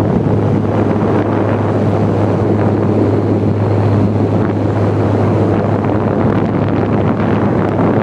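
Electric fan running, its airflow rushing over a microphone held against the rear grille by the motor, as a steady rush with a constant low hum underneath. It sounds like an airplane.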